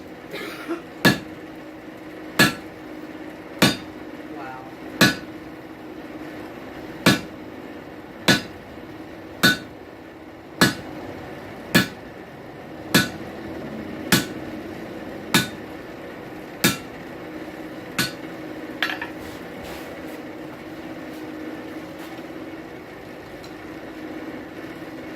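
Hand hammer striking hot steel on a hot cut, about fifteen sharp metallic blows roughly one a second, to chop a length off the bar. The blows stop about three-quarters of the way through, leaving a steady hum.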